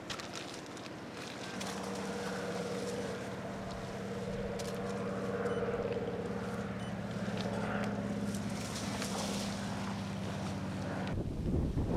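A steady drone from a distant engine, holding an even pitch, with small clicks and rustles on top. It cuts off suddenly near the end and gives way to wind buffeting the microphone.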